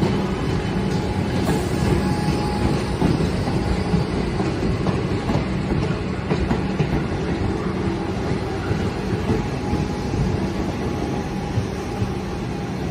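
Comeng electric suburban train rolling slowly past: a steady rumble of wheels on rail with occasional clicks over joints, and a steady low hum from the train's electrical equipment.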